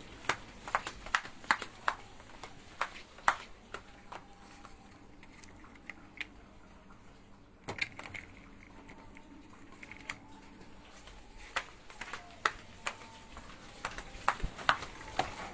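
Scattered light clicks and knocks, several in quick succession at the start and again near the end, with a quieter gap in the middle.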